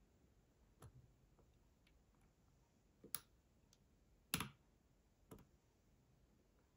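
A few faint, sharp clicks of a lock pick working the back pin of a brass Euro cylinder, four in all and spread out, the loudest a little past the middle. The pin is giving no feedback yet.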